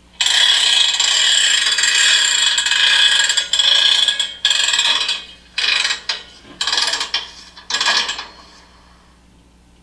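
Ratcheting of a freight car's handbrake being wound on: one long run of rapid clicks for about four seconds, then four short bursts of clicks as the brake is tightened.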